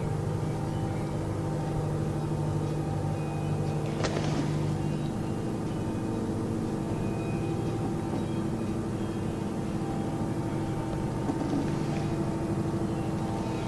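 Steady low drone with several held tones over a hum, like a distant engine or machine running without a break, a sound whose source the recordist could not identify. The lowest tone drops away about five seconds in, and a brief click sounds just before it.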